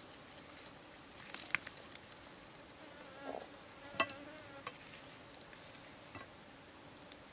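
A few light clicks and taps of a large knife blade against a rock, the sharpest about four seconds in. A brief faint insect buzz comes near the middle.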